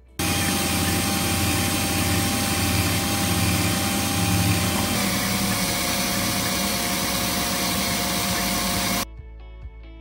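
Cordless drill running steadily, spinning a wooden roller on a bolt while a steel blade scrapes it to shape. The motor's whine drops slightly in pitch about halfway through, and the drill stops suddenly near the end.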